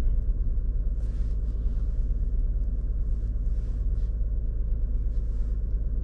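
2018 Toyota Sienna's 3.5-litre V6 idling with a steady low rumble. The engine has been misfiring on its ignition coils, which the mechanic puts down to a bad engine ground.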